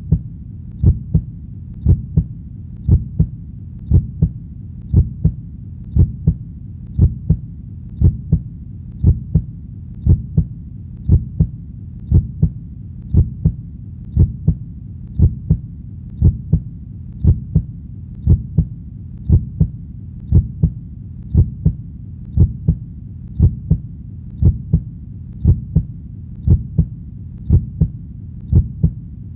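Human heartbeat: a steady lub-dub double thump about once a second, deep and low, over a faint low rumble between beats.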